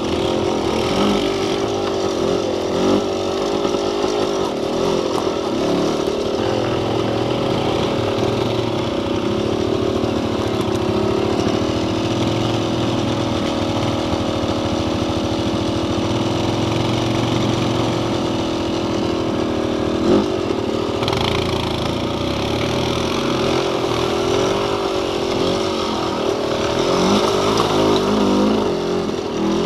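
Off-road vehicle engine running under load close to the microphone, its pitch rising and falling with the throttle, with one sharp knock about twenty seconds in.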